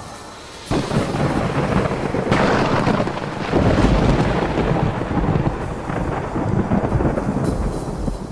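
A thunderclap breaks in suddenly about a second in, followed by rolling thunder that swells twice more. Heavy rain runs underneath, and the thunder eases off toward the end.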